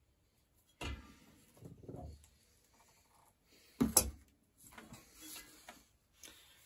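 Metal handling sounds as locking pliers work the axle of a rusty, grimy bicycle hub, with one sharp metallic clank about four seconds in as the pliers are set down on the wooden workbench.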